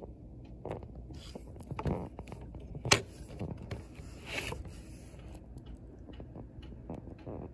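Irregular knocks and clicks with some rustling, the loudest a single sharp knock about three seconds in.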